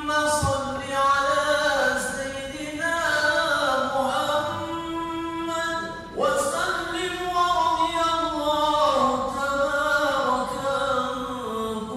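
A single voice chanting melodically in long drawn-out phrases that glide up and down, with a new phrase rising in about halfway through. It is a devotional chant, sung in the pause between the two sermons of a Friday khutbah.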